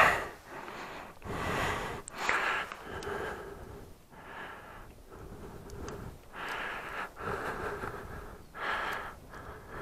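A man breathing close to the microphone: irregular breaths and sniffs, each half a second to a second long, with a few faint clicks in between.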